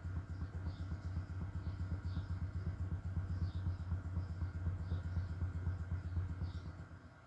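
MUTANT subwoofer playing deep, pulsing bass, its cone vibrating hard. The bass drops away sharply near the end.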